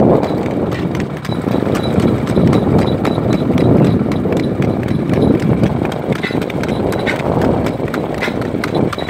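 Horse's hooves clip-clopping on a paved road in a quick, even rhythm as it is ridden at a high-stepping gait, over a steady low rushing noise.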